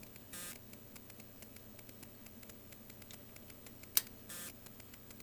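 Faint, irregular clicking as the switches of a Fluke 343A DC voltage standard are stepped up in voltage, with one sharp click about four seconds in, over a low hiss.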